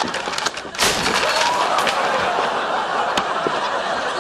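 A model spaceship kit being smashed: one sharp crash about a second in, over the continuous laughter of a studio audience.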